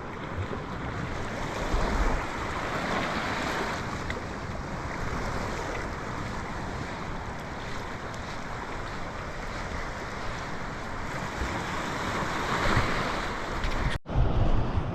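Surf breaking on a sandy, rocky shore: a steady wash of wave noise that swells twice, with wind buffeting the microphone.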